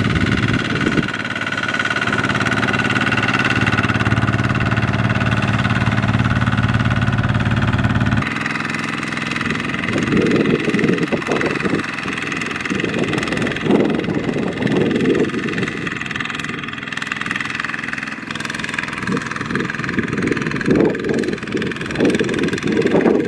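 Single-cylinder diesel engines of two-wheel walking tractors running under load as they pull trailers through deep mud. The engine sound changes abruptly about eight seconds in, from an even drone to a rougher, uneven note.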